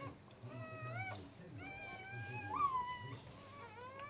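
Newborn Dogue de Bordeaux puppy crying in a string of short, high mewing squeals that rise and bend in pitch, about four of them.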